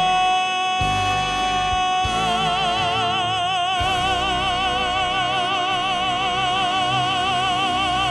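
A male musical-theatre singer belts one long, loud high note, the final held note of the song, over the accompaniment. The note is steady at first, and a wide vibrato comes in about two seconds in.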